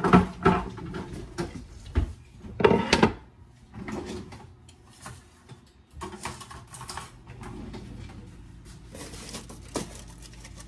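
Kitchen handling sounds: several sharp knocks and bumps in the first three seconds as a small wooden cutting board is fetched and set down on the counter, then scattered light clicks and rustles.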